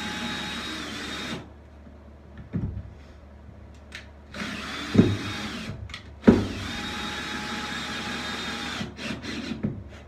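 Drill-driver driving 65 mm screws into a timber batten: three short runs of steady motor whine, with a couple of sharp knocks near the middle.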